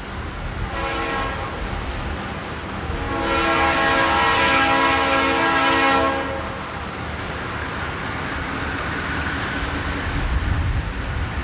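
Conrail diesel freight locomotive sounding its air horn while approaching: a short blast about a second in, then a louder long blast of about three seconds, over the steady low rumble of the train's diesel engines.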